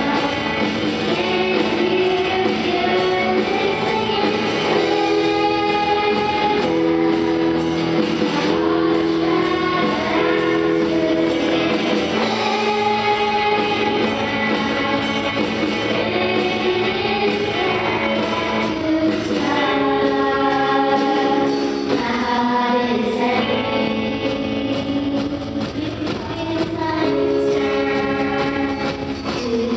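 Group of voices singing a hymn with band accompaniment that includes an electronic drum kit being played.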